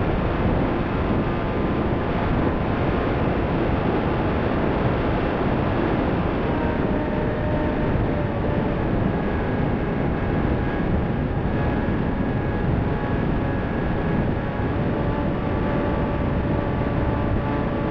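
Onboard audio of a Bixler FPV foam plane in flight: a steady rush of wind over the camera microphone, with the faint hum of its electric motor and propeller shifting in pitch now and then.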